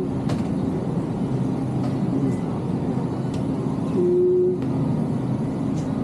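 Steady low rumble and clatter of a busy supermarket, with a brief single held tone about four seconds in.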